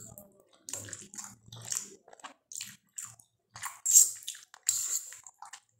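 Close-up eating sounds of soupy masala Maggi noodles: wet slurping of noodle strands and chewing in short, irregular bursts, the loudest slurp about four seconds in.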